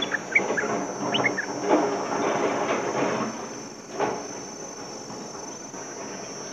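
Insects drone on one steady high note in the forest. Short, quick bird chirps sound over the first second and a half, with scratchy rustling and a few knocks around the cage through the first four seconds.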